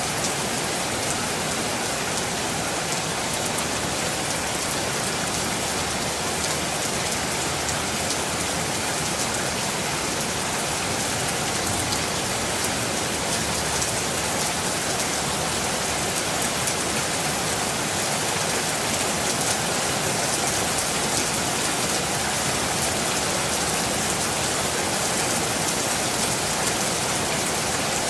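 Steady rain falling on a surface, a dense, even hiss of drops with fine patter in the highs and no change in intensity.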